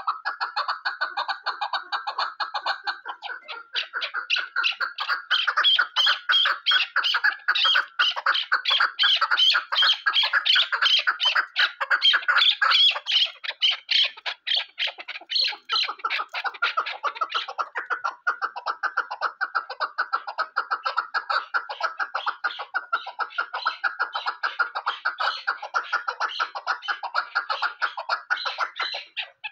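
Chukar partridge calling: a long unbroken run of rapid clucking notes, several a second.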